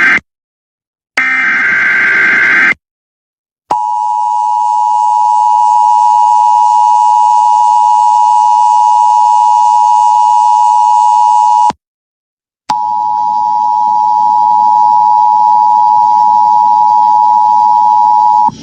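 Emergency Alert System tones. A data-burst screech of the SAME header ends at the start, and another runs about a second and a half. Then the steady two-tone attention signal sounds for about eight seconds, stops for a second, and sounds again for about six seconds, announcing that an emergency alert message follows.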